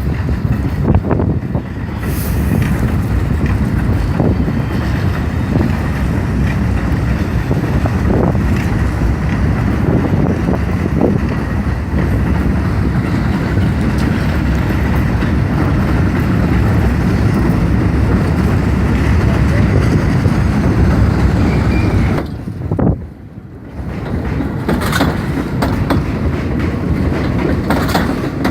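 R32 subway train running on the elevated line: a loud, steady rumble with wheel clicks over the rail joints. The rumble drops off for about a second near the end, then picks up again.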